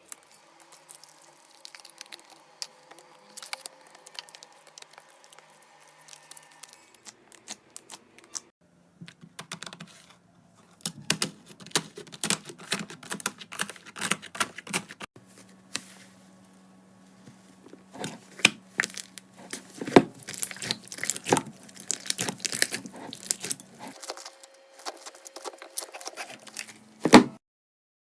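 Slime being squeezed and stretched by hand, giving dense crackling and popping clicks, with one sharp loud snap near the end.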